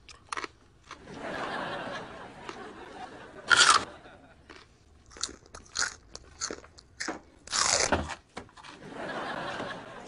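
A person loudly biting and chewing crunchy food, a raw carrot: irregular sharp crunches with chewing between them. The loudest crunches come a little after three and a half seconds and around seven and a half seconds in.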